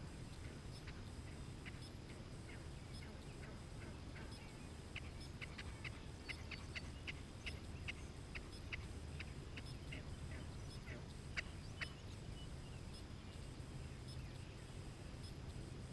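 Wild turkey clucking: a long run of short, sharp notes, a few a second, coming thicker and louder toward the middle and fading out a few seconds before the end. A faint low rumble sits underneath.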